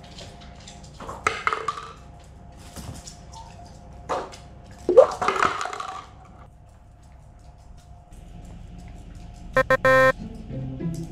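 Paper cups being knocked over and clattering onto a wooden floor, several separate falls in the first six seconds, over background music. Near the end comes a brief ringing sound effect.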